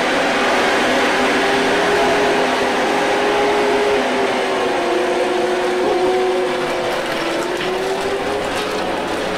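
A motor running steadily: a continuous drone that wavers slightly in pitch over a rushing noise.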